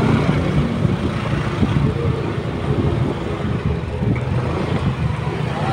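Motorcycle running steadily on the move, its engine hum mixed with wind and road noise.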